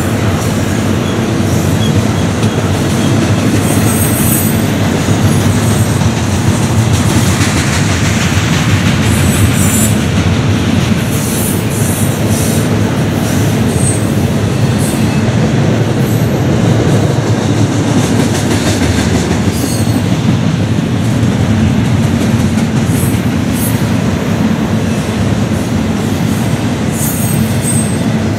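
Double-stack intermodal freight cars rolling steadily past: a continuous rumble of steel wheels on rail, with scattered short high clicks and squeals from the wheels.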